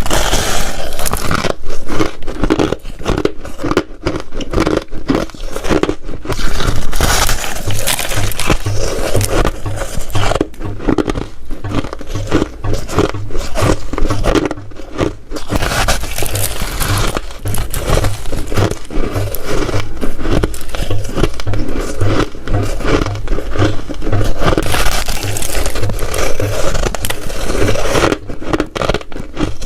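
Ice being bitten and chewed close to the microphone: a dense, unbroken run of crunches and cracks.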